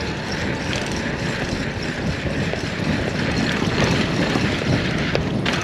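Motorcycle under way at speed: a steady mix of engine and road noise with wind rushing over the microphone.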